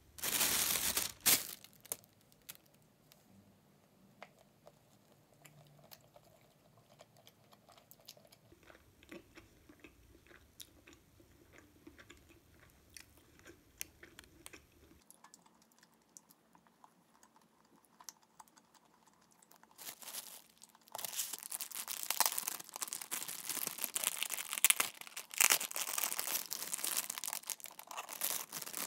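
Close-up eating sounds: soft crunching and chewing as a crusty black baguette with a cheese filling is eaten. About twenty seconds in, thin plastic wrapping crinkles loudly for several seconds as a bread roll is unwrapped, with a short loud rustle right at the start as well.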